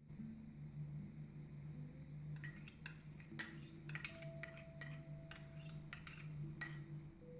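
Metal spoon clinking and scraping against a small ceramic bowl as egg whites are scraped out of it, a quick series of clinks starting about two seconds in.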